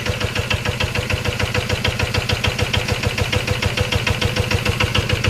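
Yanmar SS80 single-cylinder diesel engine idling smoothly with a steady, even beat: a solid-running engine in good condition.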